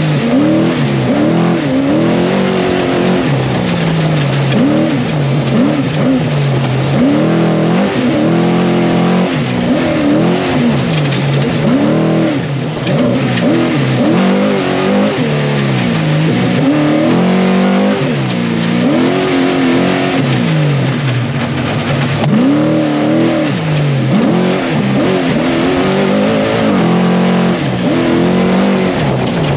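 Trophy Truck's race engine heard from inside the cab at speed, its revs repeatedly climbing and falling back every second or two as the throttle is worked over the terrain, over a steady rush of road noise.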